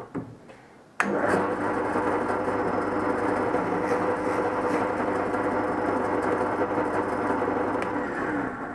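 Delta 11-090 drill press running at its fastest speed on its repaired spindle pulley, its twist bit drilling into a hand-held piece of wood. The steady motor hum and cutting noise start abruptly about a second in and stop abruptly near the end.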